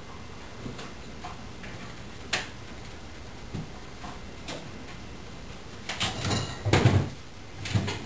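Refrigerator door being pulled open by a dog, with a few soft knocks at first and then a louder run of rattles and thuds near the end as the door swings and the drinks inside shift.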